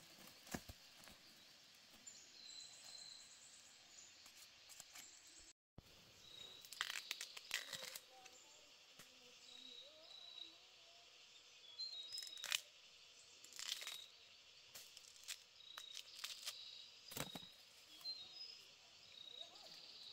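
Faint forest ambience with a small bird chirping short high notes now and then, broken by bursts of crackling, rustling and tearing as fresh bamboo shoots are stripped by hand and hacked with a machete. The sound cuts out completely for a moment about six seconds in.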